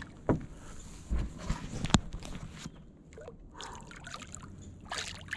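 Water trickling and dripping, with a few sharp knocks and a low thump, as a large gar tangled in the line is hauled out of the water.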